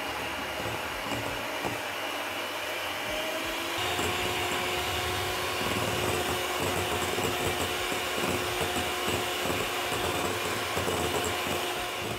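Electric hand mixer running steadily, its beaters whipping cream and icing sugar toward soft peaks in a glass bowl. The motor's hum rises a little in pitch and gets slightly louder about four seconds in, then holds steady.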